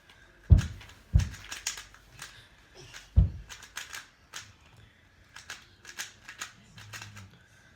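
A plastic Rubik's Cube being turned quickly by hand: a fast, irregular run of clicks and clacks as the layers snap round. Three heavier thumps stand out in the first three seconds or so.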